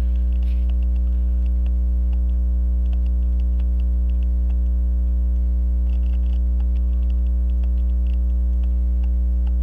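Steady low electrical mains hum with its overtones, at a constant level. Faint small clicks sound over it here and there.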